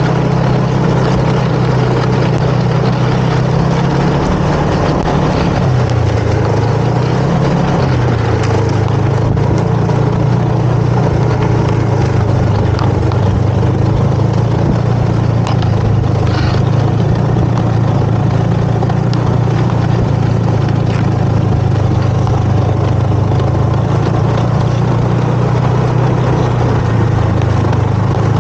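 Snowmobile engine running steadily under way, its pitch dipping and coming back up a few seconds in, with a steady hiss over it.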